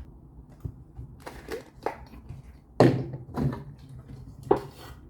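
Handling noise from a spray gun and its paint cup: a run of sharp clicks and knocks, the loudest nearly three seconds in and another about four and a half seconds in.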